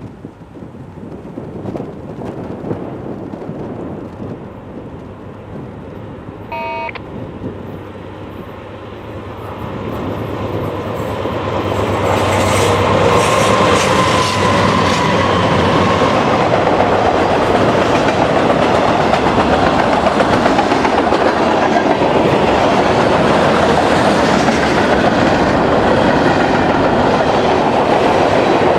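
Wind buffeting the microphone, a brief horn note, then a diesel-hauled freight train coming closer. Its locomotives' engine drone builds and the train passes close by, followed by freight cars rolling past with a steady clatter of wheels over the rails.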